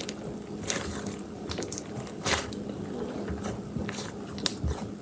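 Hands kneading slime mixed with Orbeez water beads: irregular sticky clicks and crackles as the slime is worked.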